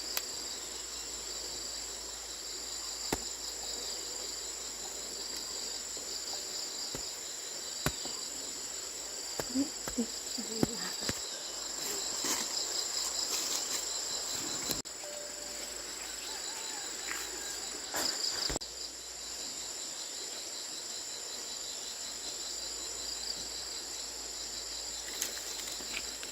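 Insects chirring steadily: a continuous high tone with a second, pulsing one below it. A few scattered clicks and knocks come in the middle stretch.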